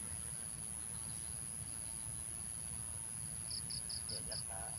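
Insects chirping: a cricket repeats a quick train of about five short high chirps near the end, over a steady high-pitched insect drone and a low rumble of background noise.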